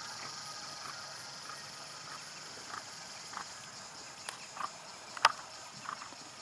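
Steady high-pitched insect drone of crickets or cicadas, with a scatter of short chirps from about a third of the way in and one sharp click about five seconds in.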